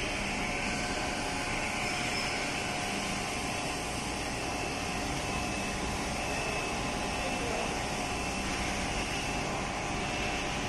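Grinding machine running steadily in a workshop, a continuous even whir with faint steady tones and no change in pitch or level.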